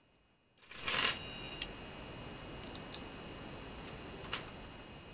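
Small plastic LEGO bricks clattering and clicking as they are handled and pressed onto a model. A louder clatter comes about a second in, then a few sharp single clicks.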